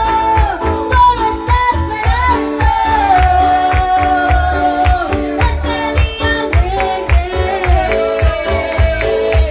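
Live Pentecostal worship chorus played loud through a PA: a man singing long held lines over keyboard and a steady beat.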